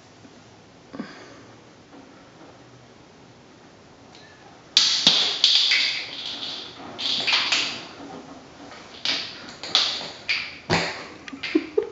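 A cat at play on a hard bathroom floor: irregular scrapes and clatters start about five seconds in, with a sharp thud near the end.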